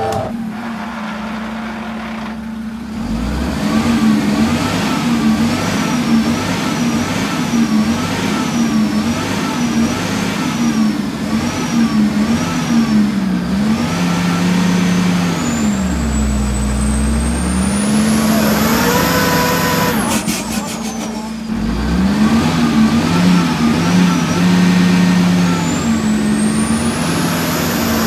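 Heavily loaded FAW Jiefang dump truck's diesel engine working hard under load, its note wavering up and down, with a turbocharger whistle that rises steeply twice, about halfway through and again near the end.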